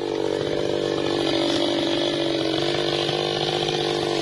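Maestro MT 6500 two-stroke chainsaw idling steadily, the engine note holding one even pitch without revving.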